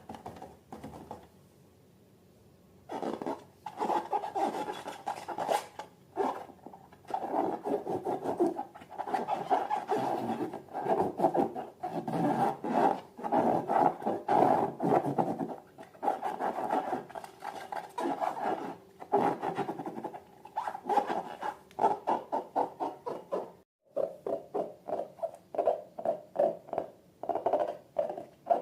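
Balloons and slime handled up close: rubbing and scratching sounds starting about three seconds in, turning into a run of short, evenly repeated rubs near the end.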